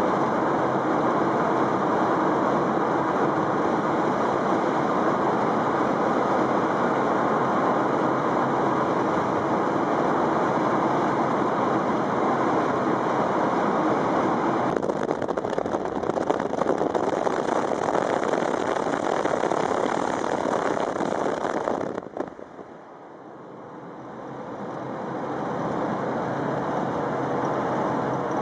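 Steady road and wind noise of a car driving at speed, heard from inside the cabin. It grows rougher about halfway through. Near the end it drops away sharply, then builds back up over a few seconds.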